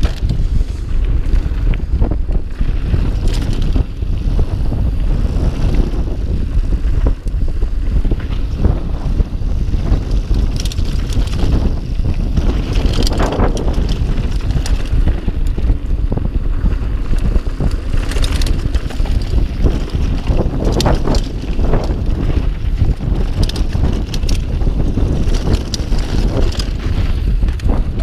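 Mountain bike riding a dirt trail: heavy wind rumble on the microphone over tyre noise, with the bike rattling and clattering over bumps and a few louder clatters along the way.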